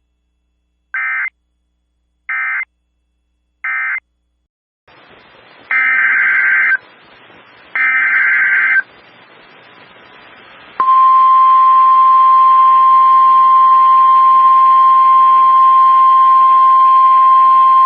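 Emergency Alert System data bursts and alert tone. First come three short screeching digital blips about a second apart: the end-of-message code closing the last alert. Then, over a hissy background, two one-second screeching SAME header bursts, and from about 11 s in a loud, steady single-pitch alert tone, the NOAA Weather Radio warning tone that opens a new warning.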